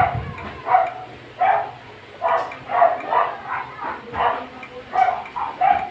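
A dog barking over and over, roughly one to two barks a second, without a break.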